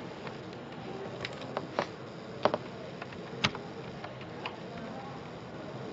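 A handful of short, sharp clicks and taps at irregular intervals, the loudest about two and a half and three and a half seconds in, over a steady low room hiss.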